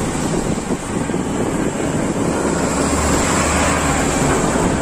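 Wind rushing over the microphone of a moving bicycle, with road traffic running alongside; a low vehicle engine hum swells in the middle and fades again.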